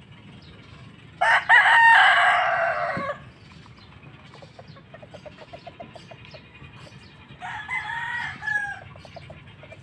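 Rooster crowing twice: a loud crow of about two seconds about a second in, then a quieter, shorter crow near the end, with hens clucking softly between.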